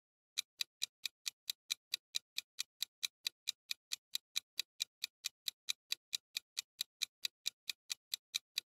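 Clock-like ticking sound effect of a quiz countdown timer, about four even ticks a second, starting about half a second in.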